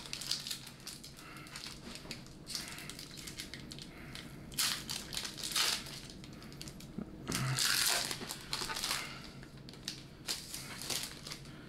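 Foil wrapper of a Pokémon trading card booster pack being torn open and crinkled by hand. It comes in several separate bursts of crinkling.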